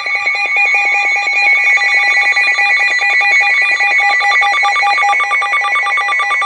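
Emergency Alert System attention signal: a loud, steady electronic alarm of several held tones with a fast, even flutter, sounding the alert for a severe thunderstorm warning.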